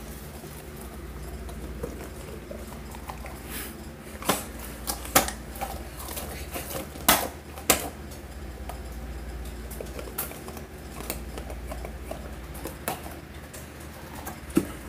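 Thin plastic water bottle crackling as hand puppets grip and squeeze it: sharp, irregular clicks, loudest in a cluster about four to eight seconds in, over a low steady hum.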